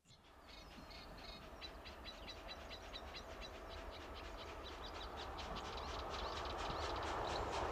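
Steam locomotive Duchess of Sutherland, an LMS Princess Coronation Class Pacific, approaching under steam: a rapid, even exhaust beat over a low rumble, growing steadily louder as it nears. Birds chirp over it in the first few seconds.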